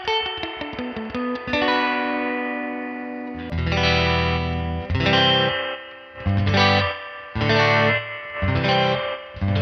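Electric guitar (Hallmark Swept Wing) played through a Crazy Tube Circuits White Whale spring reverb pedal: a fast descending run of picked notes and a held chord, then loud strummed chords in short stabs about once a second, each trailing off in spring reverb.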